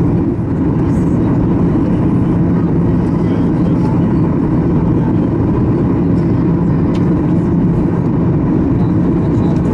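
Steady cabin noise of a Boeing 737-800 on approach, from its CFM56 jet engines and the airflow over the extended flaps, with a steady low hum running through it.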